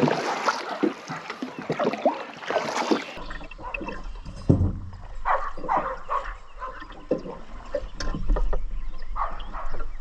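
Water splashing and sloshing around a small fishing boat, with knocks of gear. About three seconds in it drops to quieter scattered knocks and short sounds over a low hum.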